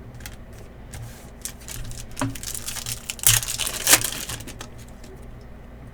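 Trading cards and their packaging being handled at a table: scattered light clicks and taps, with a louder crinkling rustle a little past the middle.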